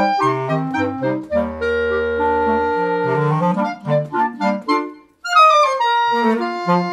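Clarinet quartet of three clarinets and a bass clarinet playing together in harmony, with a long low bass clarinet note held for over a second early in the phrase. The music breaks off briefly about five seconds in, then comes back with a loud new entry.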